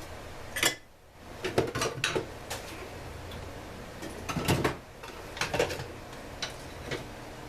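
Plastic and metal chainsaw parts and hand tools clicking and clattering as they are handled on a workbench, in a few short clusters of sharp knocks.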